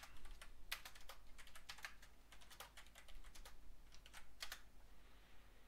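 Quiet typing on a computer keyboard: a run of irregular keystroke clicks, with a short pause partway through.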